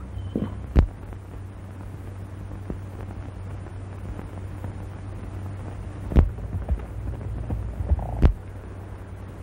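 Steady low hum of an old film soundtrack, with a few scattered horse-hoof thumps on dirt: one about a second in, then a cluster around six seconds and eight seconds as the horse is ridden off.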